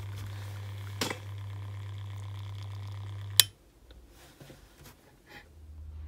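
Combi boiler diverter valve motor humming steadily under power as it drives the diverter cartridge back to the hot-water position. There is a small tick about a second in, then a sharp click at about three and a half seconds, and the hum cuts off.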